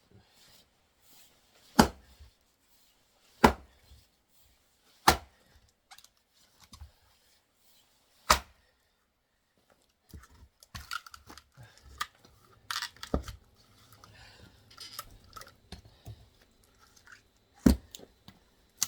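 Axe blows into a knotty oak round: four sharp strikes a second and a half to three seconds apart, then a stretch of quieter scraping and knocking as the wood is worked, and another heavy strike near the end. The knot keeps the round from splitting.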